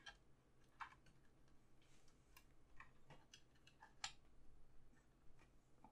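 Faint, scattered light clicks and ticks from fingers handling the small plastic jumper-wire connectors of a TTL-to-USB serial cable as one is fitted onto a pin of the router's serial header; the sharpest click comes about four seconds in.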